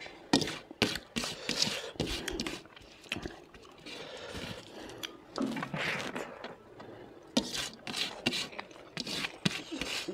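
A person chewing and eating buffalo meat: irregular wet smacks and short clicks, several a second.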